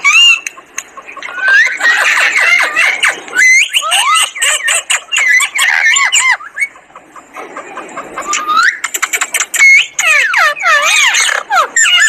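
Alexandrine parakeet chattering: a rapid run of squawks, whistled up-and-down glides and clicks, with a quieter spell a little past the middle.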